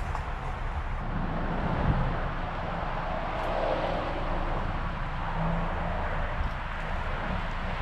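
Distant engine noise, a steady rushing rumble that swells briefly about halfway through.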